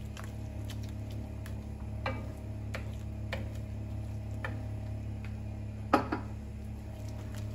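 Wooden spoon stirring a thick paste in an enamelled cast-iron pan, knocking and scraping against the pan in irregular clicks, the loudest about six seconds in, over a steady low hum.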